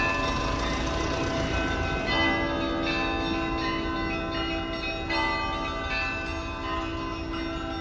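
Orthodox church bells ringing, several bells at different pitches, struck in a changing pattern with new notes setting in every second or few. The bells ring over the low hum of passing street traffic.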